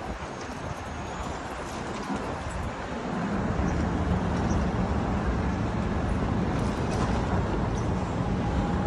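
City street traffic: a steady rumble of cars and trucks going by, growing louder about three seconds in.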